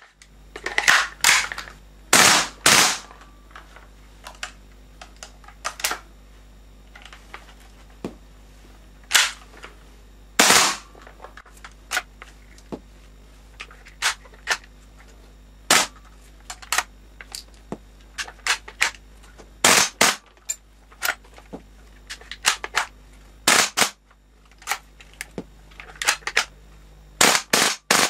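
WE SMG-8 gas blowback airsoft submachine gun firing, its bolt cycling with each shot: short bursts and many single sharp shots, with a few quick clusters of shots near the start and near the end.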